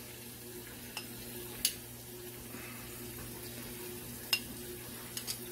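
Rice and diced onion sizzling steadily in chicken fat in a stockpot, with a few sharp clicks of utensils against the pot.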